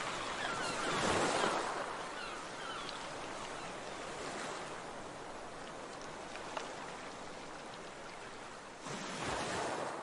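Ocean surf: waves rolling in, one swelling and breaking about a second in, a steady wash of water, and another wave surging in near the end.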